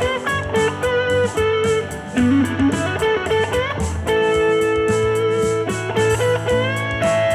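Stratocaster-style electric guitar playing a short blues-rock solo in A major pentatonic, with string bends, over a backing track with a steady beat and bass. About four seconds in, the phrase comes to rest on a long held A.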